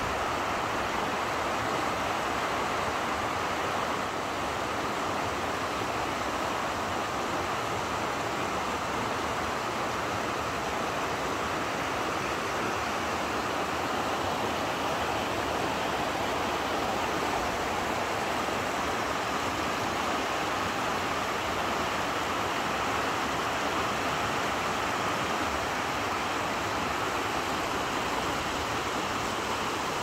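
Shallow mountain stream rushing over rocks: a steady, even water noise.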